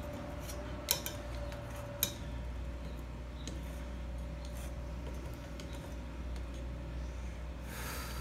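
Two sharp clicks about a second apart, with a few fainter ticks, from small hard objects being handled, over a steady low hum. A short rustle near the end.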